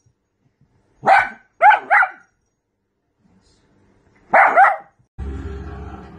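Small dachshund barking: one bark about a second in, two in quick succession just after, and a double bark a little past four seconds. Music starts suddenly near the end.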